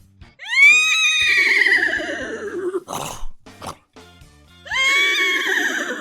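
A man imitating a horse's whinny with his voice: two neighs, the first about two seconds long, the second starting near the end. Each jumps up in pitch, then falls away with a quavering shake.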